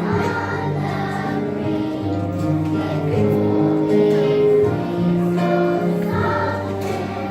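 A choir singing a song over instrumental accompaniment, with held notes and a moving bass line.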